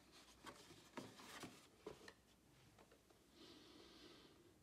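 Near silence with faint handling noise: a folding cardboard box being turned and rubbed in the hands, with a few soft taps in the first two seconds.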